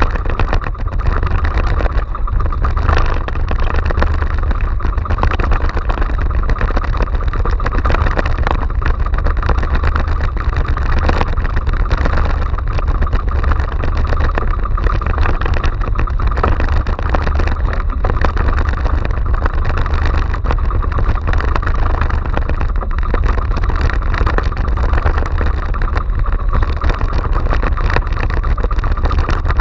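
Outrigger fishing boat's engine running steadily while under way, mixed with the rush of choppy sea water around the hull.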